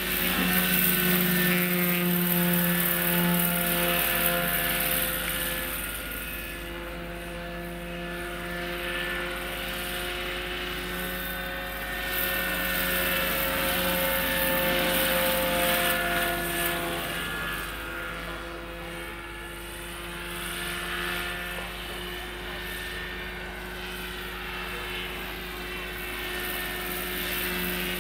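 Electric RC scale-model Bo 105 helicopter (Roban Superscale 800, Hacker 12S electric motor) in flight: a steady hum and whine from its rotors and electric drive. It is louder in the first few seconds and again around the middle as it passes closer, and quieter in between.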